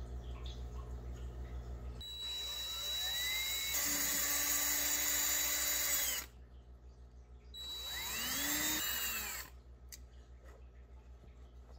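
DeWalt 20V cordless drill running a small twist bit into a wooden board in two runs: it spins up and runs for about four seconds, stops, then spins up again for a shorter run of about two seconds and winds down.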